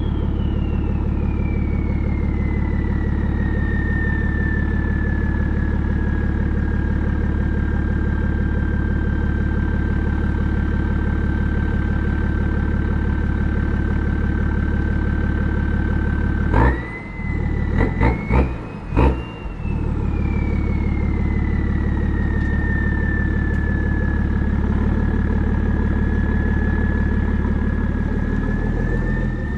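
BMW 335d's twin-turbo straight-six diesel idling through a 3.5-inch single-exit exhaust, with a high, ear-piercing turbo whistle that falls and settles. About two-thirds of the way through, several quick throttle blips in a couple of seconds push the whistle up in pitch, and it then slowly winds back down as the engine returns to idle.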